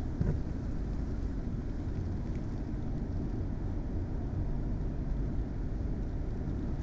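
Steady low rumble of wind buffeting the microphone, with a soft knock just after the start.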